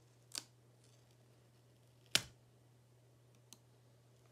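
Three sharp clicks of small tools and plastic laptop parts being handled during disassembly, the loudest about two seconds in, over a faint steady hum.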